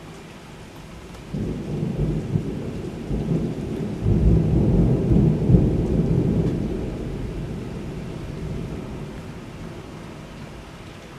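Thunder from a severe thunderstorm breaks about a second in as a deep rumble, loudest midway, then dies away slowly over several seconds. Steady rain falls throughout.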